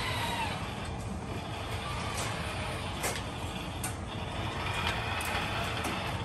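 Sawyer robot arm's joint motors whirring as the arm moves, over a steady background hum, with two light clicks about three and four seconds in.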